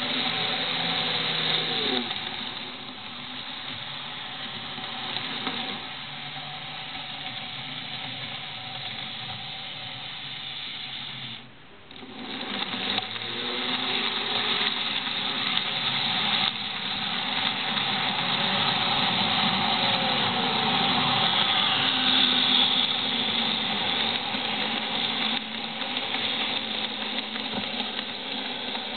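Model railway trains running past: small electric motors whirring, with their pitch rising and falling, and wheels rolling on the track. The sound dips briefly a little before halfway and is loudest about two-thirds through as a train passes close.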